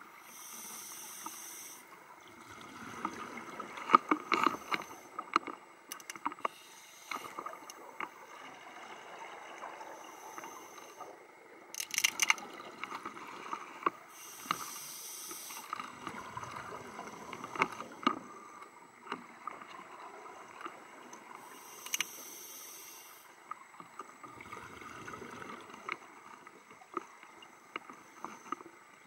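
Scuba regulator breathing heard underwater: a hissing inhalation every several seconds, each followed by a burst of bubbling exhaled air. Scattered sharp clicks and knocks fall in between.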